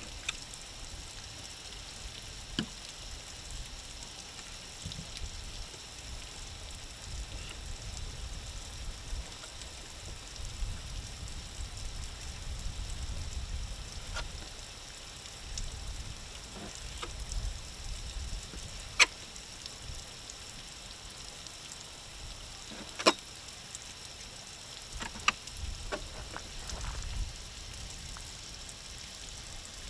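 Fillet knife slicing the bloodline out of a blackfin tuna loin on a plastic fish-cleaning table, with a few sharp clicks of the blade against the board, two of them loud, over a steady hiss and low rumble.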